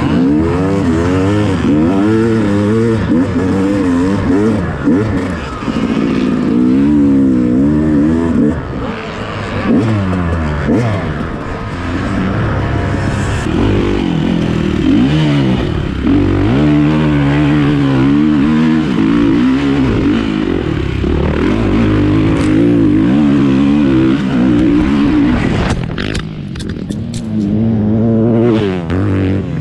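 Motocross dirt bike engine revving hard and shifting, its pitch climbing and dropping again and again as the throttle is opened and closed.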